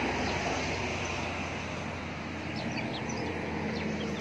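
Steady outdoor background drone and hiss, with a few short high chirps in the second half.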